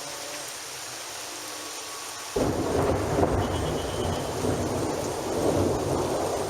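Steady rain hiss, then a little over two seconds in a loud thunderclap breaks in suddenly and rolls on as a heavy rumble of thunder over the rain.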